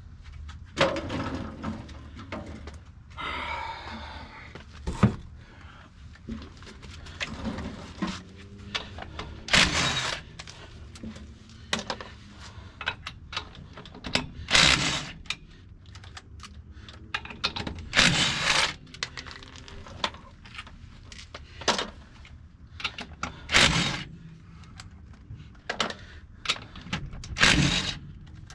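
Tools and metal parts clanking, knocking and scraping, with scattered sharp clicks and several short, loud bursts of noise spaced a few seconds apart.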